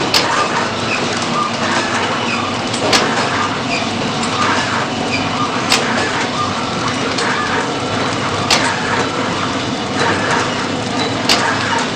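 Baking powder packaging machine running steadily, with a sharp click about every three seconds as it cycles.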